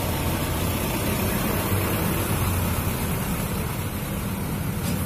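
Road traffic crossing the tracks: a dump truck's diesel engine running as it passes close by, over a steady low drone of vehicle engines.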